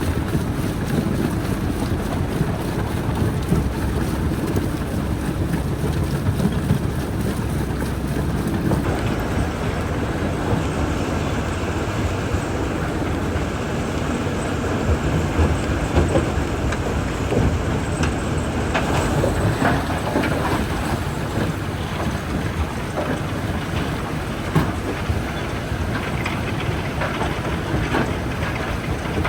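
Jaw crusher running with a steady heavy rumble while rock cracks and knocks between its jaws in many sharp clicks. The sound changes abruptly about nine seconds in, after which the cracking becomes more frequent.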